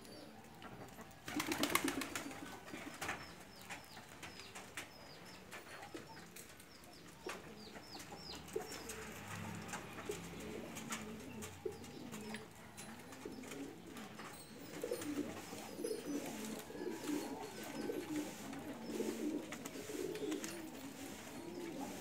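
Domestic pigeons cooing, a run of low, wavering coos repeating through the second half. A short loud burst of noise comes about a second and a half in.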